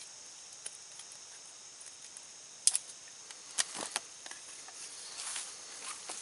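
A steady, high-pitched chorus of insects trilling, with a few sharp clicks and knocks in the middle and a short rustle about five seconds in, as a green wooden stick and a large knife are handled.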